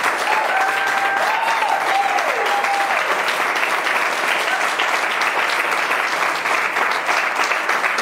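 A seated audience of a few dozen people clapping steadily, with a few voices cheering over the applause in the first three seconds.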